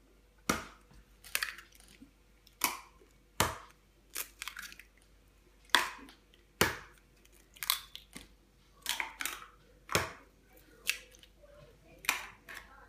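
Eggs being cracked one after another: a series of sharp, irregularly spaced taps and crunches of eggshells breaking.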